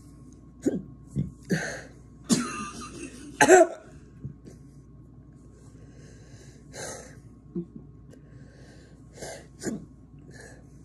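A person coughing and clearing their throat in a run of short, loud bursts, set off by the burn of very hot sauce. The fit is loudest about three and a half seconds in, then eases to a few scattered coughs.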